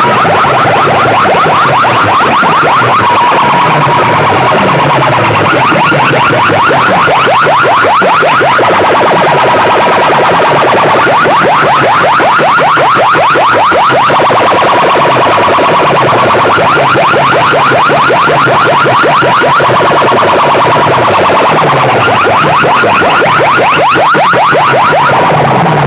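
A competition sound system blasting through large PA speakers at very high volume: an electronic, alarm-like track with a fast warbling tone over bass notes that slide downward again and again, about once a second.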